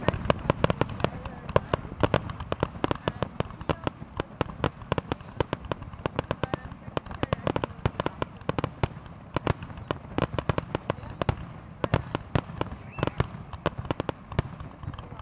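Fireworks display: aerial shells bursting in a dense, irregular string of sharp bangs and crackles, several a second, over a steady low rumble.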